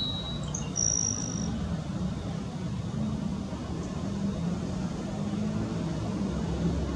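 Airbus A320neo's Pratt & Whitney geared turbofan engines running at taxi idle, a steady low rumble as the airliner taxis. A few short high chirps sound in the first second and a half.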